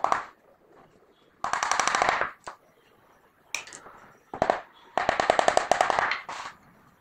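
Hand work on the wooden edge of a small box: two bursts of fast, rattling strokes on wood, each about a second long, with a few single knocks between them.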